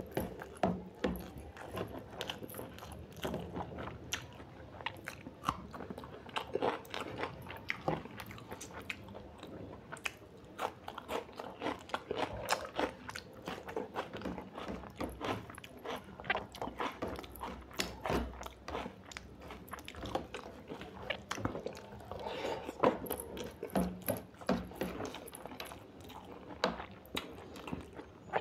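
A person eating a mutton curry meal: steady chewing and biting, with many short, irregular clicking mouth sounds.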